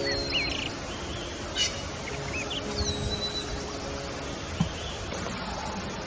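Wild birds chirping: short arched and rising whistled calls, a quick trill about a second and a half in, and a longer whistle that slides down and holds about three seconds in, over a steady outdoor hiss.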